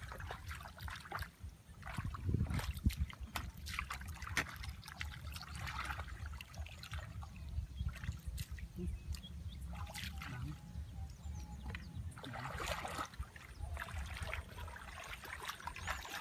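Shallow muddy water sloshing and splashing as bare feet wade and hands grope through the mud, in repeated short splashes over a low steady rumble.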